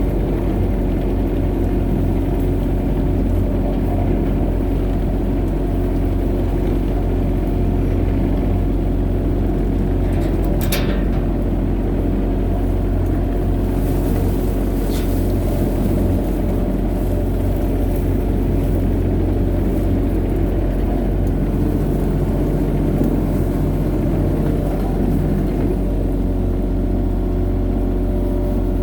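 Excavator's diesel engine running steadily under work, with a couple of short knocks near the middle.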